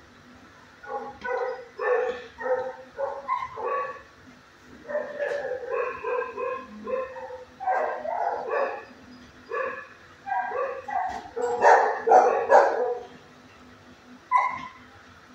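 Dog barking in quick runs of short barks, with pauses between the runs; the loudest barks come about eleven to thirteen seconds in, and a last single bark comes near the end.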